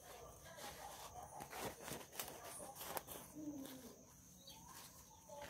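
Scissors snipping dried sweet rice paper: a few faint, sharp snips and crackles spread through the middle seconds, with a brief low call about three and a half seconds in.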